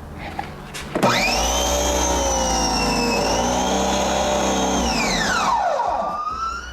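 Giraffe Tools Grandfalls Plus+ electric pressure washer motor and pump switching on about a second in with a whine, running steadily for about four seconds, then shutting off and winding down with falling pitch. The shutoff is the machine's automatic stop, which cuts the motor once the pump builds pressure with the trigger released.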